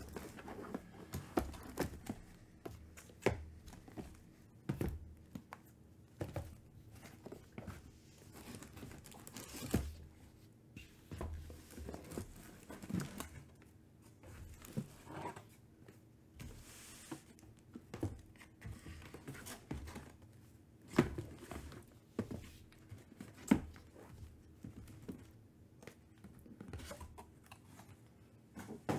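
Shrink-wrapped trading-card boxes being handled, lifted out of a cardboard shipping box and set down in stacks on a table: irregular light knocks and taps with plastic-wrap rustling, and a couple of sharper knocks about two-thirds of the way through.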